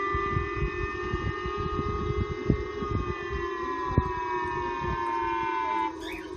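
Japan's national civil protection siren (the J-Alert missile warning tone) sounding over outdoor loudspeakers: a steady multi-toned wail whose pitch sags slowly and drops away about six seconds in, with low rumbling underneath.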